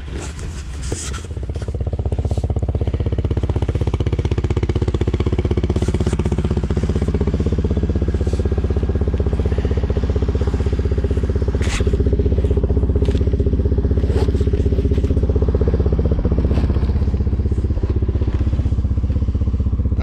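ATV (four-wheeler) engine running at a steady idle, louder from about a second and a half in, with a few light knocks.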